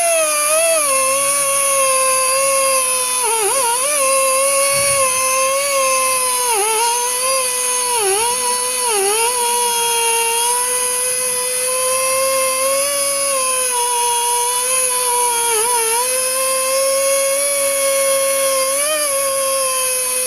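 A machine's motor running with a steady high whine, its pitch dipping briefly several times, about five times in all, as if it momentarily takes load.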